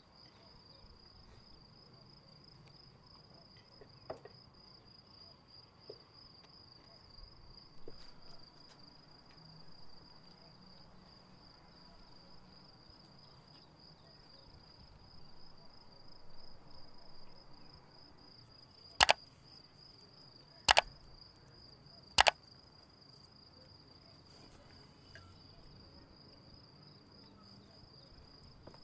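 A cricket trilling steadily on one high note, with a few faint clinks of spoons and dishes. Three loud, sharp clicks about a second and a half apart come a little past the middle and are the loudest sounds.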